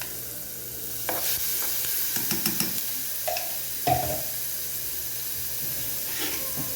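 Garlic and bell pepper sizzling in oil in a small metal pot for rice, with a spoon stirring and clinking against the pot. A few ringing knocks stand out, the loudest about four seconds in.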